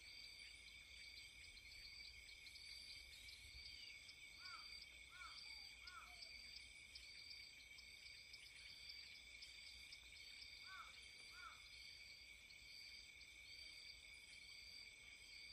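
Faint nature ambience: insects trilling steadily with a regular repeating chirp, and a bird giving three short calls about four seconds in and two more about eleven seconds in.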